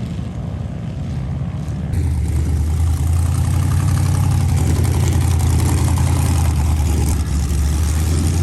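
A large off-road vehicle's engine running hard, a heavy low drone that gets louder about two seconds in, with a steady hiss over it.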